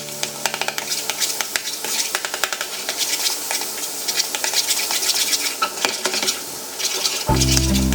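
A kitchen utensil clicking and scraping against a cooking vessel as food is stirred, with a light hiss behind it. Background music comes in near the end.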